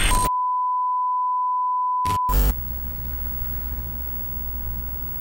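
TV static and signal-loss sound effects: a brief burst of static, then a steady test-card beep held for about two seconds, broken off by two short glitch bursts and followed by a low steady electronic drone.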